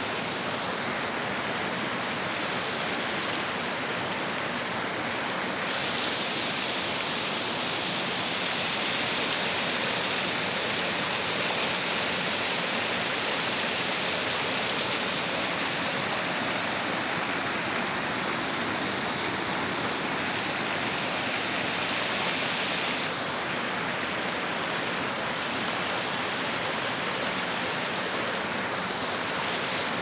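Small waterfalls and a shallow creek cascading over boulders and rocks: a steady rush of water, louder and brighter through the middle of the stretch and easing again after about 23 seconds.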